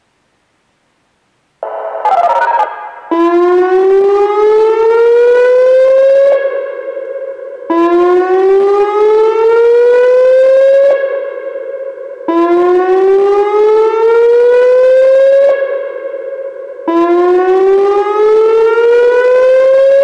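Whelen WPS-2905 electronic outdoor warning siren sounding its whoop tone. Nearly two seconds in, a short jumbled burst starts it up. Then come repeated rising sweeps, each climbing for about three seconds, dropping back briefly and starting again, about four in all.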